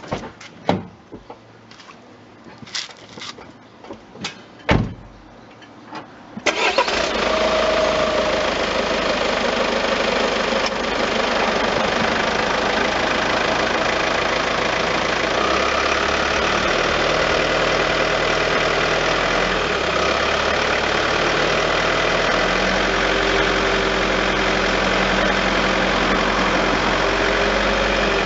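A few clicks and knocks, then a Peugeot 508's engine cranks and starts about six and a half seconds in and settles into a steady idle. A low steady drone joins the idle about halfway through.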